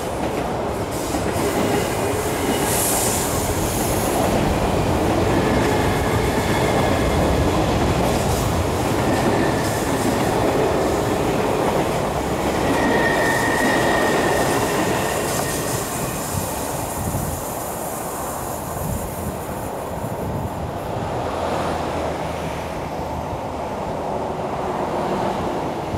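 East Rail Line electric multiple-unit train running past on curved track, a steady rumble of wheels on rail. Thin high wheel squeals from the curve come and go, loudest about halfway through.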